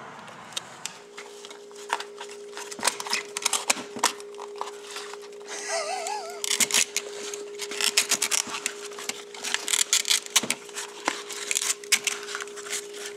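Blown Boston 6x9 car speaker, overdriven until it smoked, still being driven: a steady mid-pitched tone starts about a second in and holds, over irregular crackling and clicking from the burnt speaker.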